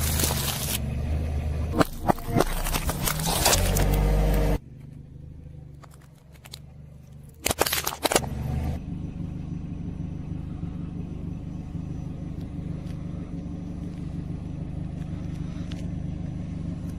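A car tyre rolls over and crushes plastic-wrapped packs, sharp crackles and pops over the running car, stopping abruptly. After a quieter stretch, a tyre crunches a plastic box of cotton swabs with a few sharp crackles. Then a steady low car engine hum with faint clicks.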